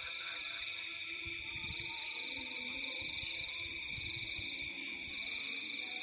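Steady night-time insect chorus, a continuous high trilling, with soft low thumps of footsteps underneath.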